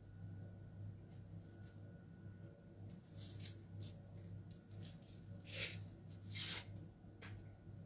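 Faint, papery rustling and tearing of dry shallot skin being peeled by hand, in a few short strokes, the loudest about two-thirds of the way through. A steady low hum runs underneath.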